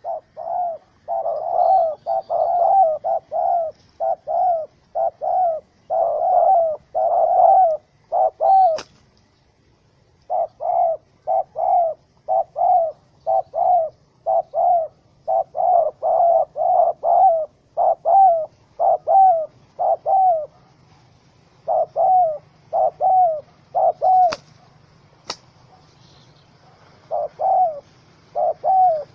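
Spotted dove cooing in runs of short, quick notes, two to three a second, broken by brief pauses, with a few sharp clicks between.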